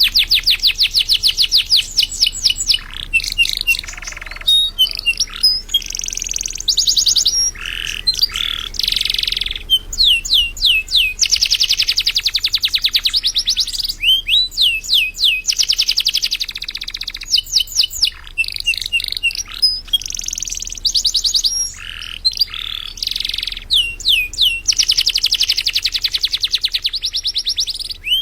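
Domestic canary singing steadily and loudly, a long song of fast rolling trills and rapid repeated chirps, in phrases with short breaks between them.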